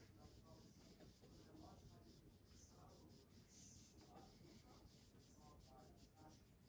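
Faint, light scratching and rubbing as a wrapped electrode on a 9-volt battery lead is worked over a steel knife blade for electro-etching.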